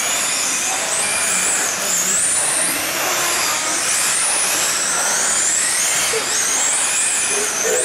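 Several radio-controlled sprint cars racing on a dirt oval: overlapping high-pitched electric motor whines that rise and fall as the cars speed up down the straights and back off into the turns, over a steady hiss.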